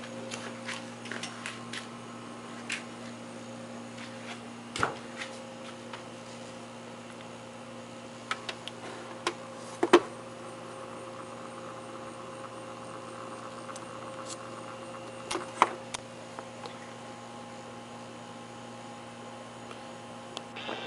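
Steady low electric hum of a Westclox model 26395 electric wall clock's synchronous motor running, with a few sharp clicks or taps, the loudest about five, ten and fifteen seconds in.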